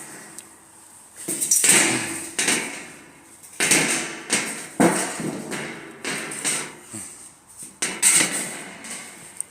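About six irregular sharp knocks, each with a short ringing clatter, from firewood being handled and loaded into a homemade flagstone furnace.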